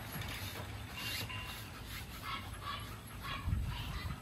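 American bully dog making quick breathy sounds, panting and faint whimpering in short bursts several times a second. There is a low bump about three and a half seconds in.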